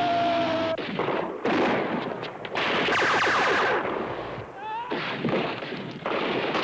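Rapid gunfire in a film fight scene: dense, fast volleys of shots, with a break about two-thirds of the way through before firing resumes. Before it, a steady high tone cuts off suddenly under a second in.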